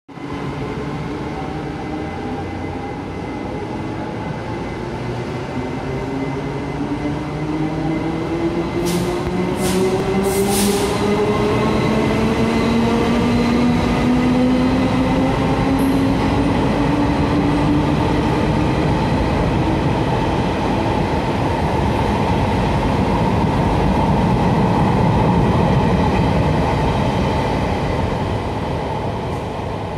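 Taiwan Railways passenger train pulling out of a station and passing close by, its drive hum rising steadily in pitch as it gathers speed. Three short hisses come about nine to eleven seconds in.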